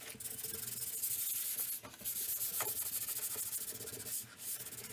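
Hand sanding a worn wooden bench seat with a folded sheet of 220-grit sandpaper: light back-and-forth rubbing strokes, a scratchy hiss that pauses briefly about two seconds in and again near the end. The light pass only scuffs the surface without cutting through the original stain.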